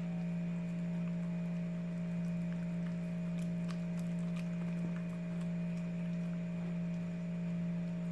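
Background music: a steady droning tone held on one low note with fainter higher tones above it, unchanging throughout. A few faint clicks sound in the middle.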